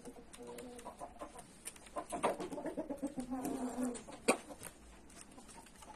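Chickens clucking in short calls, with a longer drawn-out call between about two and four seconds in. A single sharp click just after it is the loudest sound.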